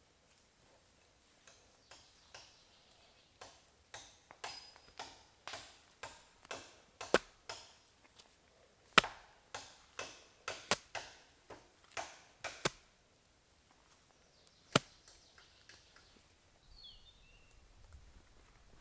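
Bare hands scooping and crumbling loose, dry forest soil: a run of short scraping strokes about twice a second, with a few sharp clicks among them, ending in one last click after a pause.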